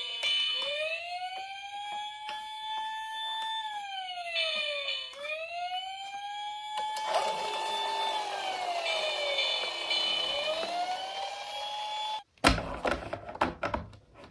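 Electronic siren of a toy emergency-vehicle minicar wailing up and down in slow cycles of about five seconds, with a higher warbling tone coming and going over it. From about seven seconds a rushing noise joins in. Just after twelve seconds the siren cuts off and a few knocks follow.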